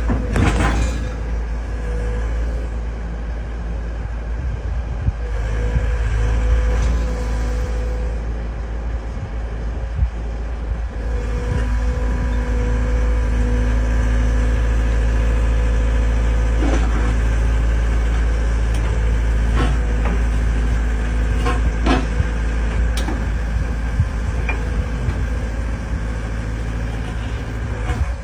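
The diesel engine of an XCMG 60G excavator runs steadily with a deep rumble and a faint steady whine over it. A few short knocks come in the second half.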